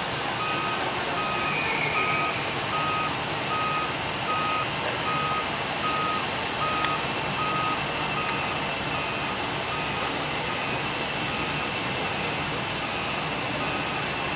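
Reversing alarm of an airport ground vehicle beeping steadily, under a steady hum of vehicle and engine noise.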